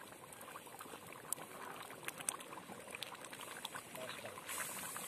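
Thick chicken curry boiling in a large open pot, spluttering with many small, irregular pops and crackles.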